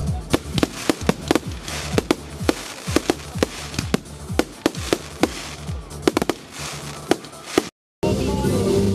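Fireworks display: a rapid, irregular string of sharp bangs from aerial shells bursting, about three a second, with music playing underneath. Near the end the sound cuts out briefly and the music carries on without the bangs.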